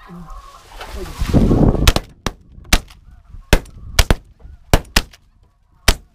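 Shotguns firing a fast volley at incoming snow geese: about nine shots between two and six seconds in, some close together, as if from two guns. Before them, a loud rustle of the blind's grass cover being thrown open, with snow goose calling in the background.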